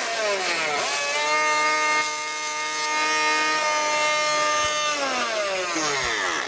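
Small 12-volt pump motor whining as it runs on the DC fault voltage coming out of the amplifier's faulty right-channel speaker terminals. Its pitch drops over the first second, holds steady for about four seconds, then drops again near the end as it winds down.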